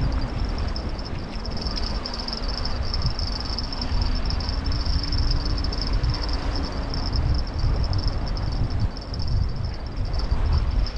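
Wind buffeting the microphone on an open sea wall with the wash of choppy sea, rising and falling in gusts, with a steady high-pitched hiss above it.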